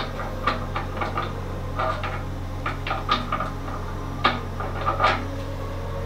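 Small rock pieces clicking and clacking against larger stones as they are fitted into a rock arrangement, about a dozen sharp, irregular clicks.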